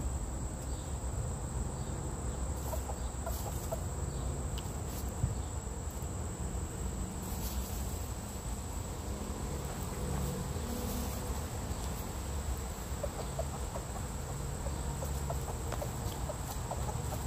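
Silkie, ayam cemani and onagadori chickens clucking softly now and then while they forage, more often in the later part. Under them runs a steady high insect drone.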